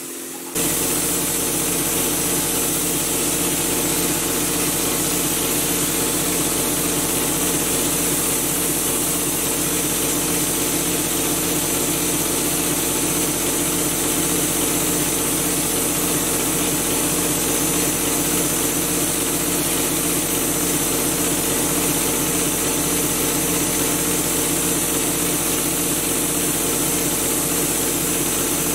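Air compressor for the texture hopper gun running steadily, with a motor drone and a high hiss. It comes in abruptly, much louder, about half a second in.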